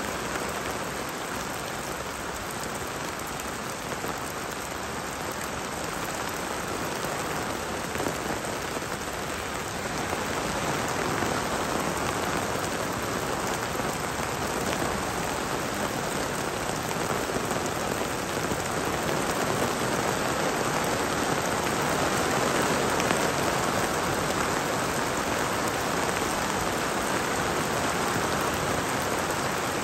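Steady rain falling in a thunderstorm, growing heavier about a third of the way in.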